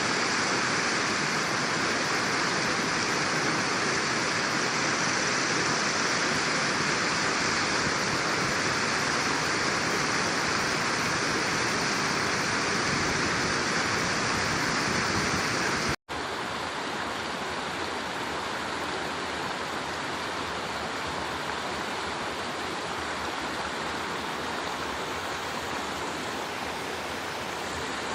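Rushing mountain stream, a steady hiss of flowing water. About halfway through it cuts out for an instant and comes back a little quieter.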